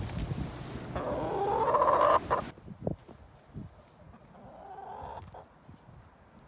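Backyard chickens calling: a loud, drawn-out, wavering call about a second in that cuts off suddenly, then a fainter one near the end.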